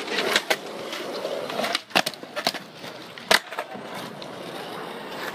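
Skateboard wheels rolling on concrete, with several sharp clacks of the board striking the ground. The loudest clack comes a little past three seconds in.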